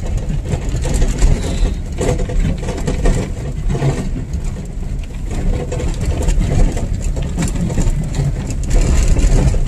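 Vehicle driving along a rough dirt track, heard from inside: steady low engine and tyre rumble with a few knocks and rattles as it rides over the ruts.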